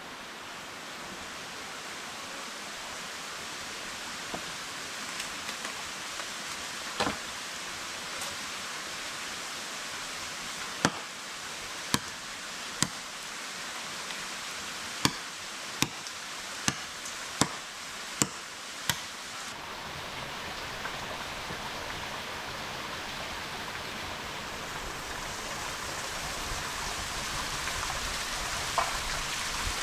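Steady rushing water. Over it, a run of about nine sharp knocks roughly a second apart in the middle, with a few weaker knocks earlier.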